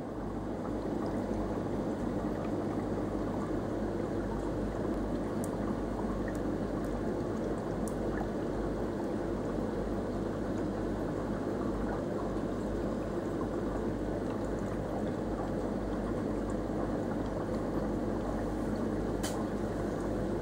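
Steady running and bubbling water of a reef aquarium's pump and filtration, over a low hum, with a faint click near the end.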